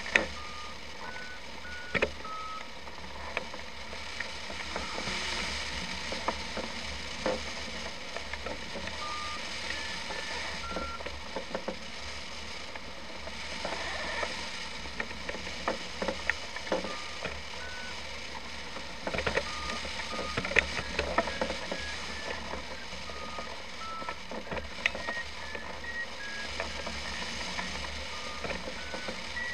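Flight variometer beeping: short single-pitch tones, one or two a second, whose pitch steps up and down and climbs higher toward the end. Under it runs a steady rush of airflow noise with scattered clicks and knocks.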